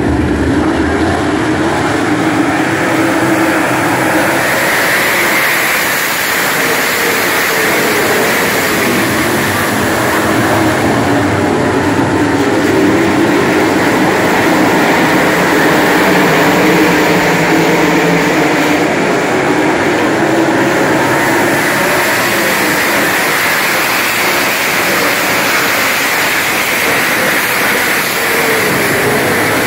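A full field of World of Outlaws 410 sprint cars, methanol-burning V8s, running flat out around a dirt oval. Their engines make a loud continuous noise whose pitch keeps rising and falling as the pack goes around.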